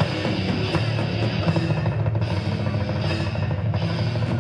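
Death metal band playing live: electric guitars, bass and drum kit playing on without a break.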